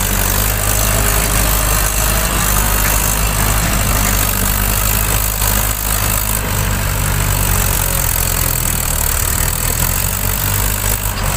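Mahindra 575 DI tractor's four-cylinder diesel engine running steadily under load, pulling a laden trailer across soft field ground.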